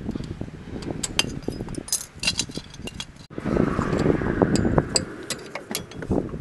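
Hand tools clinking against drum-brake return springs and steel shoe hardware as the springs are gripped and pried with pliers and a screwdriver: a run of irregular sharp metallic clicks and clinks over a low rumble of handling, broken off for an instant a little past halfway.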